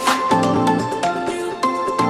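Background music: an electronic track with a steady beat and repeating melodic notes.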